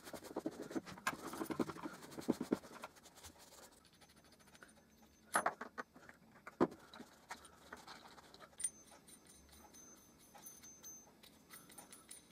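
An oily rag rubbed briskly over the cast-iron frog of a Stanley No. 4 hand plane for the first few seconds. Then quieter handling of small metal plane parts, with two sharper knocks about a second apart as parts are set down on the wooden bench, and a few light clinks.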